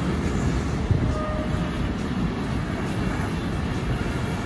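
Container wagons of a long intermodal freight train rolling past on the rails, with a steady low rumble of wheels on track.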